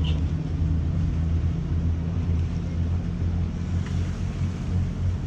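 Sailing yacht's inboard diesel engine running steadily, a constant low drone, with wind and water noise over it.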